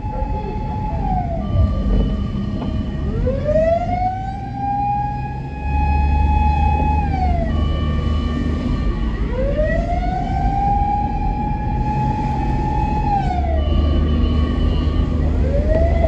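Japanese fire vehicle siren wailing: the pitch falls, then rises and holds for a few seconds before falling again, in slow cycles about six seconds long. A low road rumble runs underneath.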